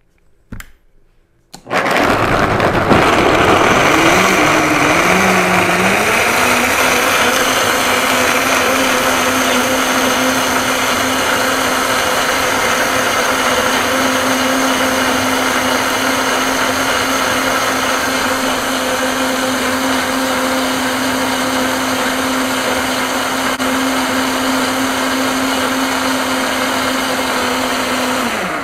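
High-speed countertop blender blending soaked, peeled almonds with water into almond milk. After two short clicks, the motor starts about two seconds in, climbs in pitch over the next few seconds, then runs at a steady high speed and cuts off at the very end.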